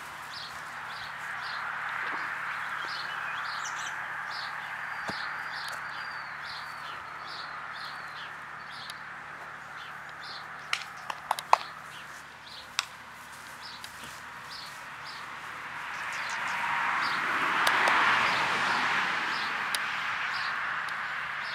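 Outdoor birdsong: small birds chirping in short, repeated high notes over a steady rushing noise that swells and peaks about eighteen seconds in. A few sharp clicks come about eleven seconds in.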